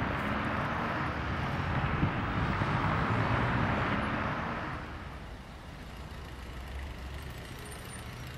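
Road traffic: a vehicle passing with a loud rushing sound that fades away about four and a half seconds in, leaving a steady low rumble of more distant traffic.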